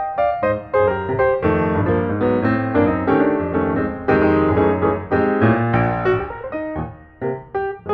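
Background piano music: a lively run of many short notes.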